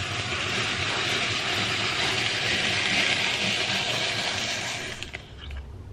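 Hand-cranked apple peeler-corer turning an apple on its threaded shaft while the blade pares off the peel: a steady mechanical noise that stops about five seconds in.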